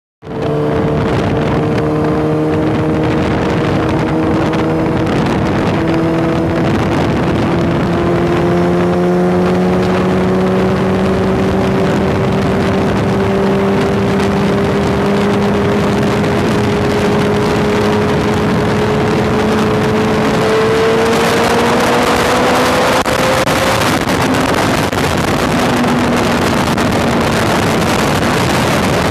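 Motorcycle engine pulling hard in a high gear at full speed, its pitch climbing slowly as the bike accelerates to about 180 km/h. Wind rushing over the microphone grows louder and drowns out the engine in the last few seconds.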